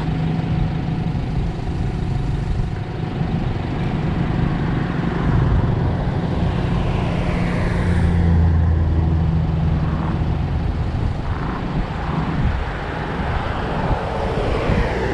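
Road traffic passing close by: a steady engine drone with vehicles sweeping past, the loudest pass-by about eight seconds in and another near the end.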